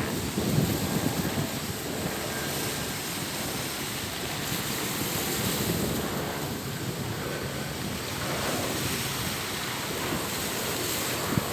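Sea surf washing on the shore in slow swells, with wind buffeting the microphone as a low rumble. A single short knock near the end.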